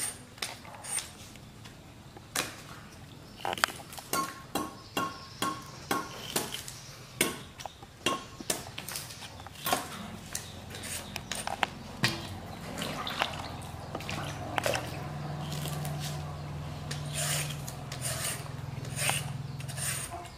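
Irregular crisp scrapes and crunches, one or two a second: a vegetable peeler stripping the skin off a green fruit and a baby macaque gnawing sugarcane. A low steady hum comes in about two thirds of the way through.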